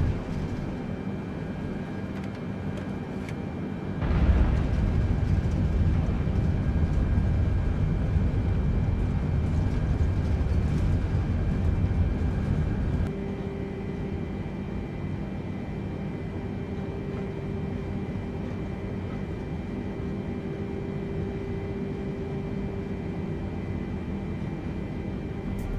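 Jet airliner landing: a steady rumble of engines and rolling that swells sharply about four seconds in and stays loud, then drops back about halfway through to a quieter rumble with a steady hum.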